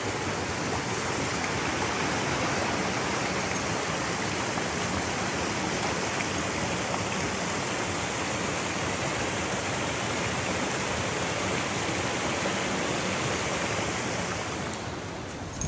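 Waterfall: a steady rush of falling water, easing off slightly near the end.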